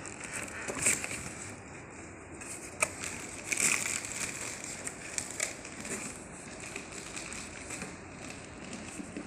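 Packaging crinkling and rustling as it is opened by hand, with scattered sharp clicks and crackles; the loudest bursts come about a second in and around three to four seconds in.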